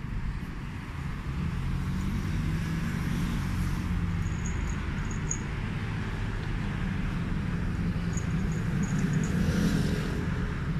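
Steady rumble of road traffic, swelling louder near the end as a vehicle passes, with a few faint high chirps.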